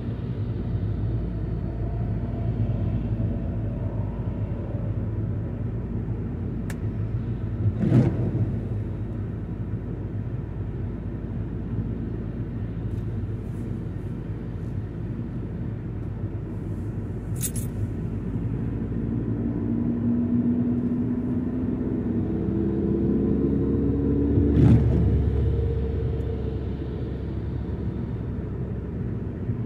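Car engine and road rumble heard from inside the cabin, with the engine note climbing in steps a little past twenty seconds in. There is a brief thump about eight seconds in and another near twenty-five seconds.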